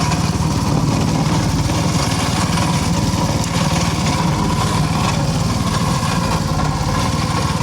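A small engine running steadily at constant speed, with an even low throb.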